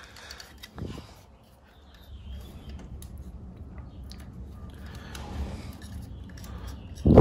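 Small handling noises of a plastic connector and its cable being worked through an electric bike's frame: faint scraping and rustling with small clicks, a light knock about a second in, and a short, loud thump near the end.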